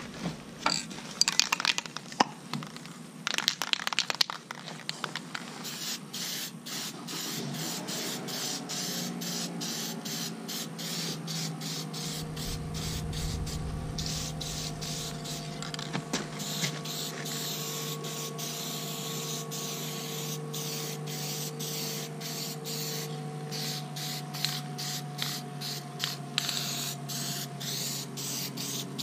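Aerosol spray can being shaken, the mixing ball inside rattling in quick clicks several times a second. The first few seconds hold louder irregular clatter as the can is handled, and a faint steady hum runs underneath.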